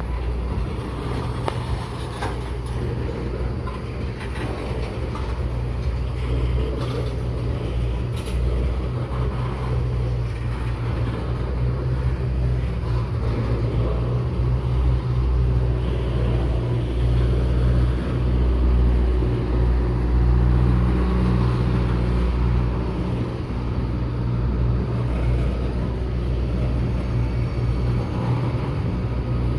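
Diesel locomotive engine running: a steady low drone that grows louder around the middle.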